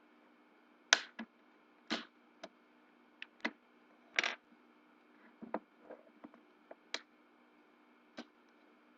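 Irregular sharp clicks and taps of small plastic and metal parts being handled while a Samsung GT-S5330 Wave 533 phone is taken apart, about a dozen over several seconds, with a faint steady hum underneath.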